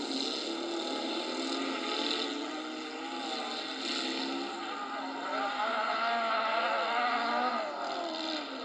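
Autocross race car engines running hard on a dirt track, their pitch rising and falling as the drivers accelerate and lift, louder from about halfway through. The sound is thin and without bass.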